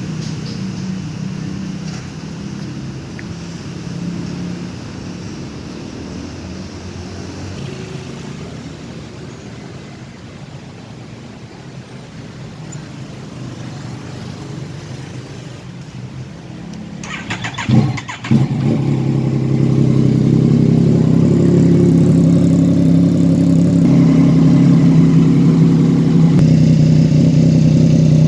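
Yamaha MT-09's three-cylinder engine running softly at first. About two-thirds of the way in comes a short burst of rapid clatter and a quick rise in pitch, and then the engine settles into a steady, louder idle.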